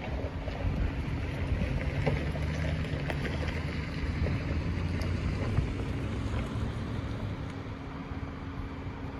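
Steady low engine drone with a faint hum under a rumble of wind on the microphone, somewhat louder in the first few seconds and easing toward the end.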